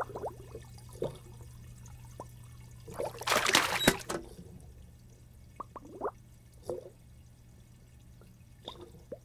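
Cartoon water effects: water pouring and splashing into a fish tank for about a second around three seconds in, with short bubbling plops before and after, over a steady low hum.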